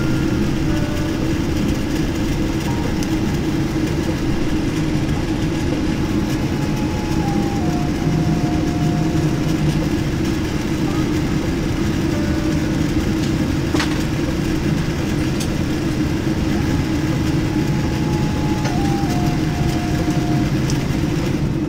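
Steady rumble of a Boeing 787-9's cabin as it taxis in on idling engines. Faint tones step down in pitch twice, and a single click comes about 14 seconds in.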